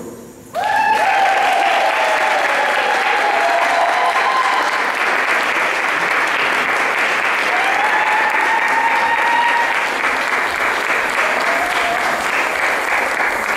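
Audience applauding after the music stops. The clapping starts about half a second in and carries a few long, high whoops, then thins out near the end.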